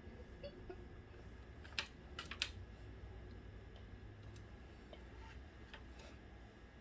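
A few faint, sharp clicks and taps over a low steady hum, with a quick cluster of four about two seconds in and one more near the end.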